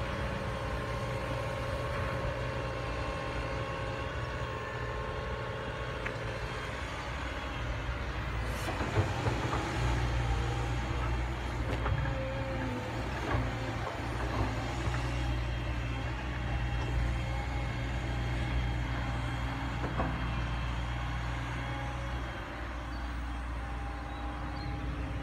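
CAT 320 hydraulic excavator's diesel engine running steadily as the machine swings and digs sand, working harder from about eight seconds in, with a few sharp knocks and clanks in the middle.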